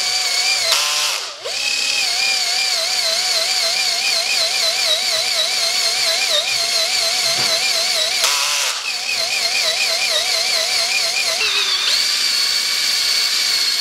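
Cordless drill spinning a rubber eraser wheel against car window glass to rub off sticker adhesive: a steady high motor whine that wavers in pitch as the pressure changes. Twice it turns briefly into a harsher rasp, about a second in and again past eight seconds, and the pitch sags and recovers near the end.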